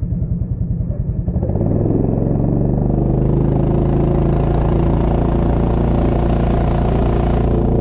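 Go-kart engine idling with a pulsing beat, then about a second and a half in it picks up and runs steadily under load as the kart pulls away and gathers speed, its pitch rising near the end. A hiss of tyres on wet tarmac joins in partway through.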